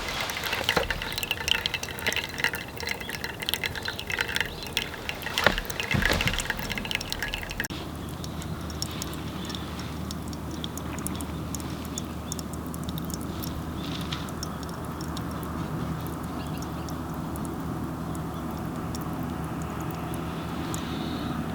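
Clinks and clatter with liquid being poured, then from about eight seconds in a steady low hum.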